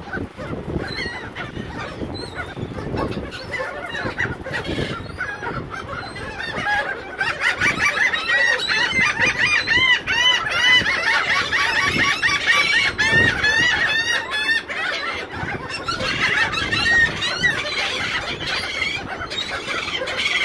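A flock of laughing gulls squabbling over food, many short calls overlapping, growing thickest and loudest in the middle.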